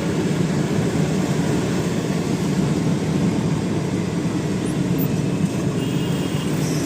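Steady running noise of a light diesel truck heard from inside the cab at road speed: engine drone and tyre and road rumble.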